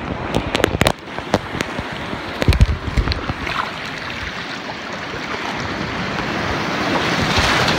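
Shallow surf foaming and rushing over the sand, with a few sharp clicks in the first second and low knocks about two and a half seconds in. The rush of water swells near the end as a wave washes in.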